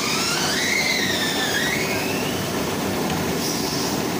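Steady running noise of a plastic blow-moulding workshop's machinery. A thin high tone glides up and down over it for the first two seconds or so.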